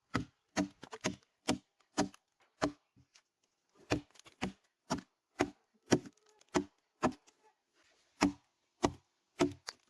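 A hammer driving nails into wooden ceiling planks: a series of sharp, ringing blows, one or two a second, with a couple of short pauses.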